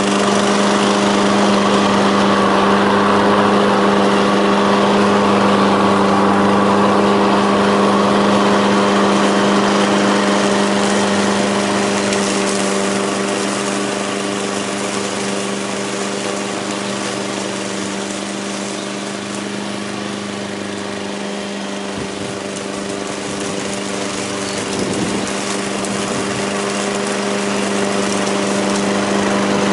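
Petrol walk-behind lawn mower engine running steadily at working speed, evenly and without misfires, after its carburettor and intake gaskets were repaired. It is a little quieter in the middle stretch, then louder again.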